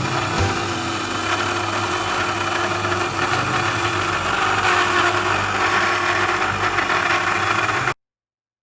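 Mini CNC 3020 router running steadily while engraving, its spindle motor giving a continuous mechanical whine. The sound cuts off abruptly near the end.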